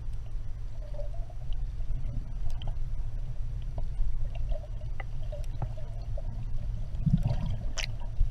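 Underwater water noise picked up by a submerged camera: a steady low rumble of moving water with scattered small clicks and ticks, swelling briefly near the end.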